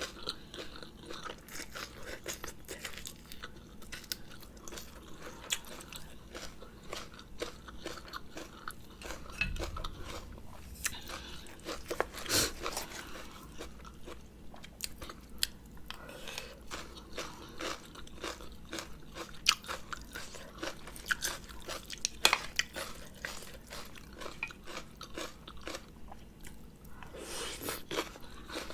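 Close-up eating sounds: a person chewing and crunching a spicy rice-noodle salad, with many irregular small clicks and crunches of the mouth.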